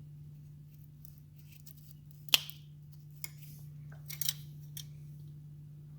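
Converted LG refrigerator running with a steady low hum, with a few sharp clicks on top, the loudest about two seconds in.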